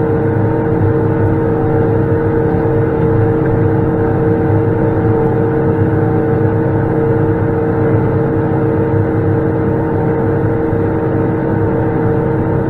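Kubota M6-131 tractor's diesel engine running steadily under load while pulling a Kuhn GMD 800 disc mower, heard from inside the closed cab. It is a constant low drone with two steady whining tones over it.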